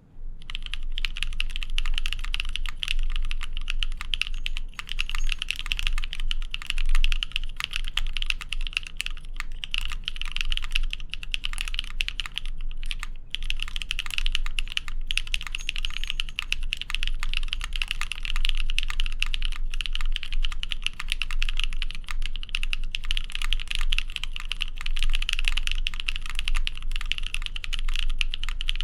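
Continuous fast typing on a Monokei Kei R2 mechanical keyboard with Aflion Tropical Waters switches, a POM plate, a brass bottom and OG NCR keycaps: a dense, unbroken run of keystroke clacks that starts suddenly.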